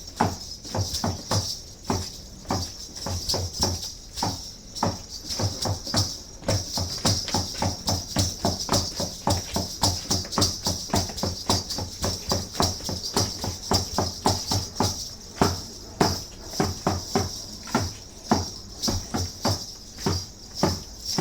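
Conchero dance percussion: a drum beating a fast, even rhythm of about three or four strokes a second, with a continuous high shaking of rattles.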